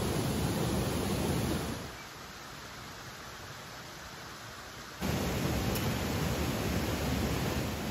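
Steady rush of flowing stream water, with no rhythm or pitch. From about two seconds in it drops to a quieter, thinner hiss, then comes back at full strength about five seconds in.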